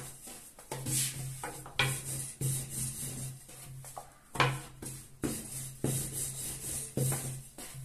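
Long thin wooden rolling pin (oklava) rolling out a sheet of dough on a floured countertop: repeated rubbing, rolling strokes, with several sharp knocks of the wood against the counter.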